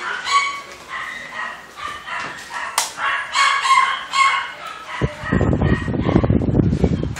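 Dogs barking and yelping in a row of shelter kennels: short, high, ringing calls coming in quick bursts. About five seconds in, a rough rumbling noise starts suddenly and takes over.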